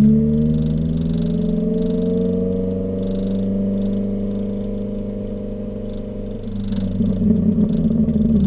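Modified exhaust of a Ford Fiesta ST150's 2.0-litre four-cylinder engine, heard at the tailpipe while driving. The engine note rises, holds and drifts slowly under throttle, then turns rough and uneven about six and a half seconds in.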